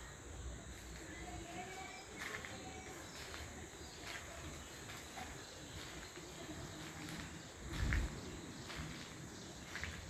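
Forest ambience: a steady high insect drone with faint, scattered bird chirps, a few short clicks and a low thump about eight seconds in.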